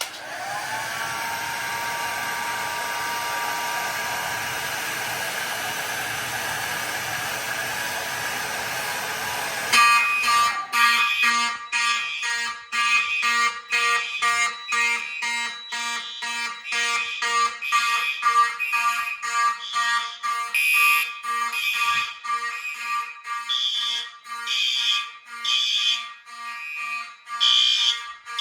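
Hair dryer running steadily, spinning up at the start, blowing hot air at a heat detector. After about ten seconds it stops and the fire alarm system goes into full alarm, its notification appliances sounding a rapidly repeating pulsed pattern over a steady tone: the heat detector has tripped.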